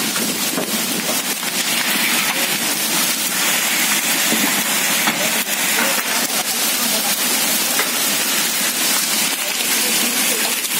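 Hailstorm with rain: big hailstones and rain pelting concrete and other hard surfaces, a dense steady hiss broken by many sharp clicks of stones striking.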